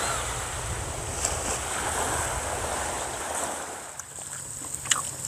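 Small sea waves lapping on a rocky shore, with some wind rumble on the microphone. About three and a half seconds in the wash drops away, and a few light clicks of utensils on a griddle pan follow.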